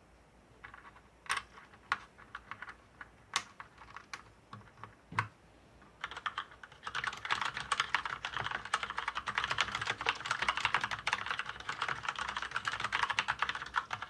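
Mechanical keyboard with Outemu red linear switches being typed on: scattered single keystrokes for about the first six seconds, one deeper than the rest about five seconds in, then fast continuous typing that stops near the end.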